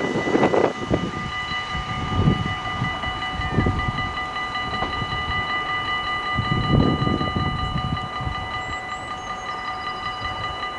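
Level-crossing bell ringing steadily while the barriers are down, as an NS double-deck intercity train fades away along the track. A few low rumbles come and go.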